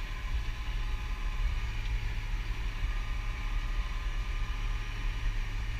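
Massey Ferguson tractor engine running steadily nearby, a low, even drone.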